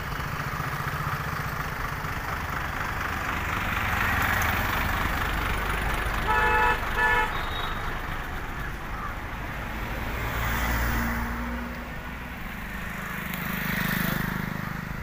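Steady road-traffic and engine rumble, with a vehicle horn tooting twice in quick succession about six and a half seconds in.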